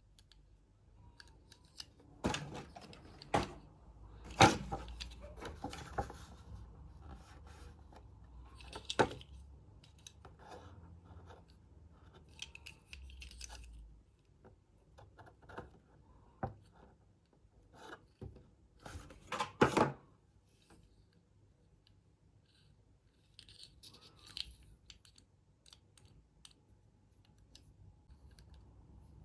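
Packaging of a Hot Wheels five-car pack being opened by hand: plastic blister and cardboard crinkling, scraping and tearing, with scattered sharp clicks. Two louder bursts of handling come near the start and about two-thirds of the way through.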